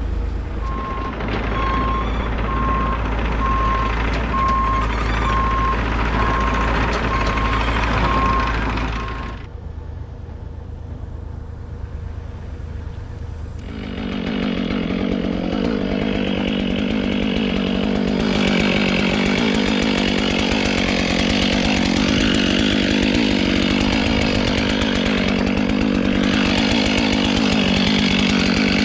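A heavy machine's engine running, with a regular beeping. After a quieter few seconds a chainsaw runs loudly for the rest of the time, its pitch rising and falling.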